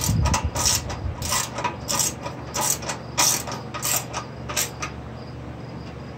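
Hand socket ratchet wrench clicking in short, uneven runs as a bolt is turned, stopping about three-quarters of the way through.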